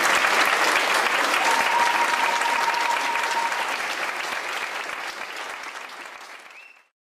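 Audience applauding, fading away steadily and cutting off just before the end. A steady high tone is held for about two seconds near the start of the applause.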